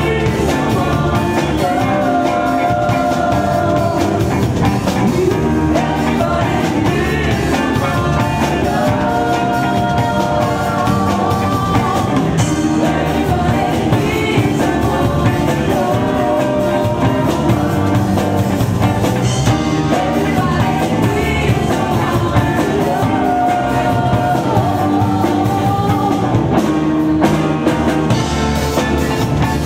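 Live funk-soul band playing at full volume: drum kit, bass and electric guitar, with sung vocal lines over them.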